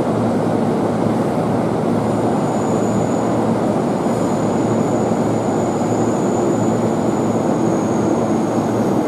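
Steady hum and whir of a stationary electric commuter train at the platform, with a thin high whine joining in about two seconds in.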